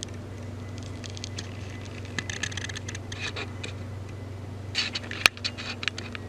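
Paintbrush scraping and dabbing paint onto a 3D-printed plastic sword in two short bursts of scratchy strokes, with one sharp click about five seconds in, over a steady low hum.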